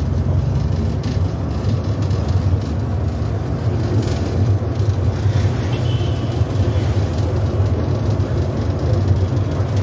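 A bus's engine and road noise heard from inside the cabin while it drives along at a steady speed: a steady low rumble.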